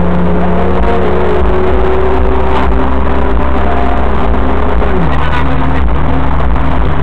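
Car engine running at a steady speed with road and tyre noise, heard from inside the cabin. The engine note is loud and even, and drops slightly in pitch about five seconds in.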